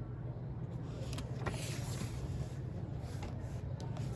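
A few scattered clicks of mechanical keyboard keys over a steady low hum, a key struck now and then rather than a fast run of typing.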